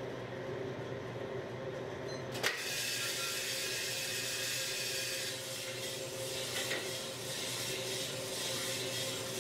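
Small drum coffee roaster running with a steady hum. About two and a half seconds in, a click as the hopper gate is opened, then a steady rushing rattle of coffee beans pouring into and tumbling in the turning drum.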